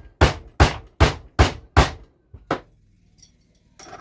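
Soft-faced mallet tapping on a dirt bike engine's crankcase: a quick run of sharp strikes, about two and a half a second, then one lighter hit, knocking the case halves apart while a case splitter pulls on the crankshaft.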